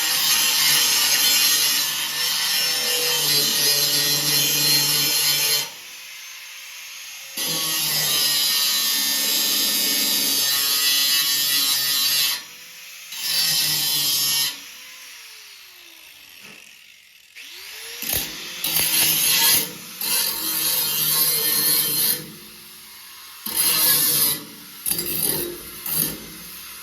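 Power grinder grinding the thin rusted steel of a snowmobile frame in several long passes, its motor winding down in the pauses between them. Near the end come a few short, quick bursts.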